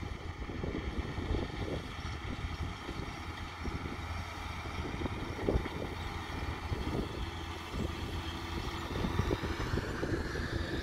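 John Deere tractor running steadily as it pulls a cultivator across a field, with a steady whine above the engine. Wind buffets the microphone with a gusty rumble.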